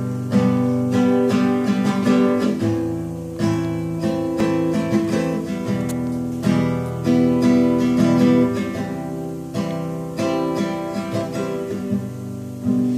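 Classical guitar with nylon strings, played solo in a steady rhythm of strummed chords, each chord ringing on into the next.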